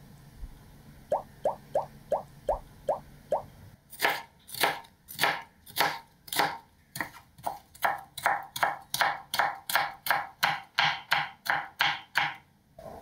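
Chef's knife chopping green bell pepper on a bamboo cutting board: a first run of seven shorter knocks, then about nine seconds of steady chopping at roughly three strokes a second.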